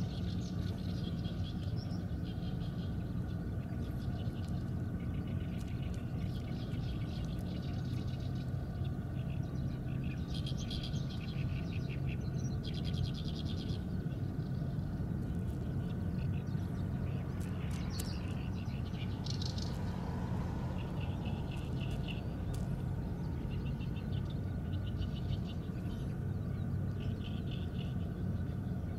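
Small birds singing short, fast trilled phrases, one every second or two, over a steady low machine hum.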